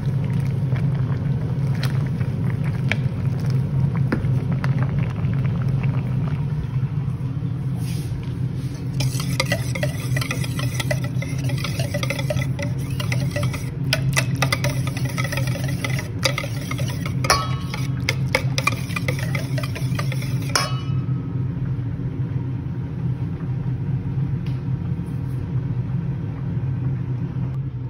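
A wire whisk clinks and scrapes against a stainless steel bowl while cream is whisked, in quick irregular strokes from about nine to twenty seconds in. A steady low hum runs throughout and is the loudest sound.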